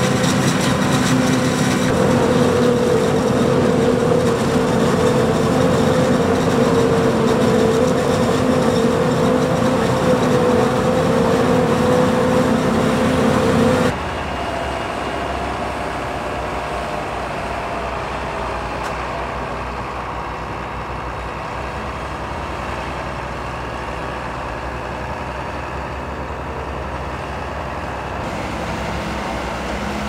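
Heavy diesel farm machinery running steadily: a John Deere self-propelled forage harvester's engine and chopper drone at full work, with a steady hum. About halfway through the sound cuts to a quieter, steady tractor engine working on the maize silage pile.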